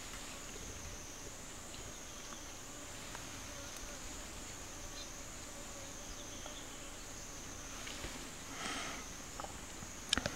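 Insects droning steadily at a high pitch, the tone wavering gently up and down about once a second. Near the end come a brief noisy burst and a few sharp clicks.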